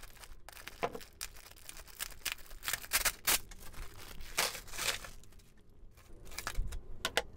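Clear plastic zip-top bag crinkling and rustling as it is handled and opened, with a mass of costume jewelry shifting and clattering as it is tipped out into a plastic storage bin. The crackle is dense for most of the time, then thins to a few light clicks near the end.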